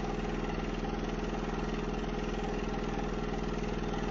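A machine running steadily, with a low engine-like hum and a fast, even pulsing rattle.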